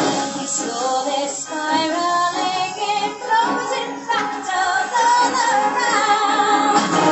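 A woman singing a soaring solo show-tune melody over instrumental backing.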